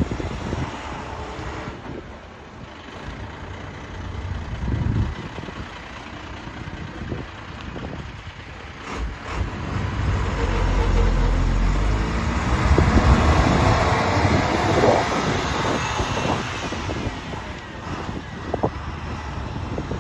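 Blue Bird International 3800 school bus running on the road, its diesel engine and road noise growing louder about halfway through with the engine pitch rising, then easing off toward the end.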